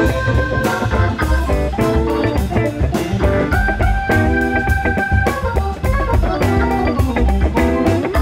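A jazz quartet playing live: electric guitar and keyboard over bass and drums, with a steady beat.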